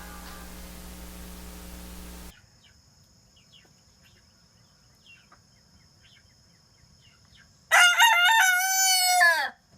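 A rooster crowing once, a loud call of nearly two seconds that wavers in pitch and falls away at the end, about eight seconds in. Before it, music cuts off about two seconds in, and faint small bird chirps follow.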